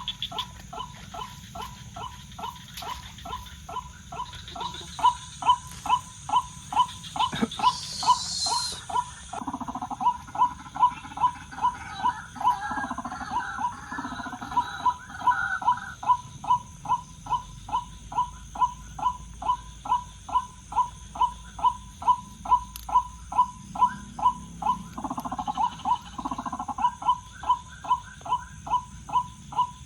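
White-breasted waterhen's "wak-wak" call repeated evenly, about twice a second and without a break. From about ten to sixteen seconds in, and again around twenty-five seconds, more calls overlap it.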